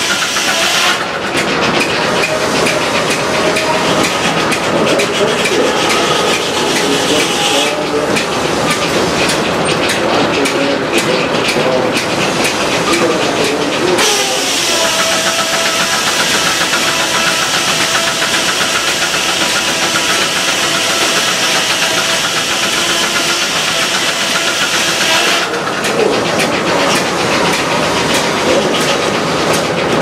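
Steam-powered circular sawmill running with a loud mechanical noise and hiss of steam; about 14 seconds in the blade bites into the log and a loud, harsh cutting sound, with a falling tone as it takes the load, lasts about eleven seconds before it eases off.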